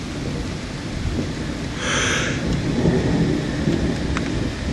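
Thunder rumbling steadily under falling rain, with scattered drop ticks. About two seconds in, a brief high-pitched sound of about half a second cuts through the rumble.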